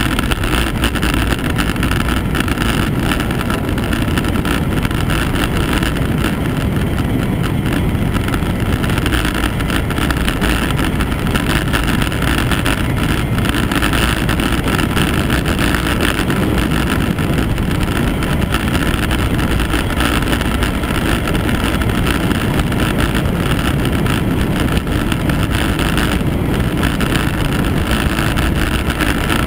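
Wind rushing over the camera's microphone on a fast downhill road descent: a loud, steady, unbroken roar.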